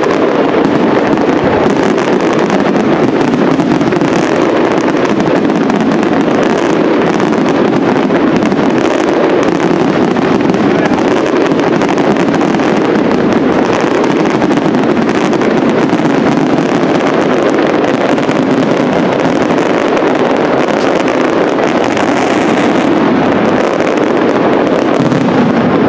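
Dense aerial fireworks barrage: shells bursting and crackling stars going off so thickly that the bangs run together into one steady, unbroken din.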